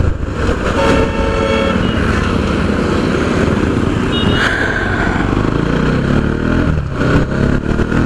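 Motorcycle engine running at low speed through a U-turn, with steady road noise. A horn sounds for about a second near the start, and a short high beep comes about four seconds in.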